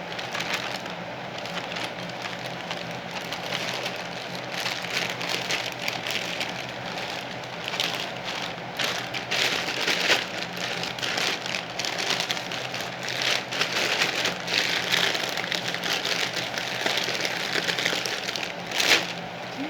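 Plastic parcel packaging being handled and torn open: continuous crinkling and crackling with many small snaps, busier in the second half, with one sharp crackle near the end.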